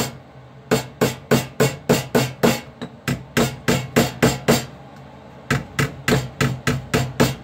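Rapid light hammer taps, about five a second, on a copper sheet's edge laid over a heavy steel block, in three runs with short pauses between. Each tap turns the edge of the copper hull half over into a small flange, about a sixteenth of an inch, for soldering.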